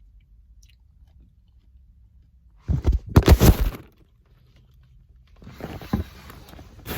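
Close-up chewing and crunching of fresh fruit: a loud bout of bites about two and a half seconds in, and a second, softer bout near the end.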